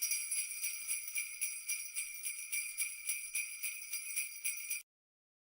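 Jingle bells shaken in a steady rhythm, about four shakes a second, cutting off suddenly near the end.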